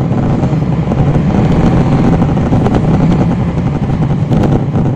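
Cummins ISL9 inline-six diesel engine of a NABI 40-foot transit bus running, a loud steady low drone heard from inside at the rear of the bus, with a few light clicks near the end.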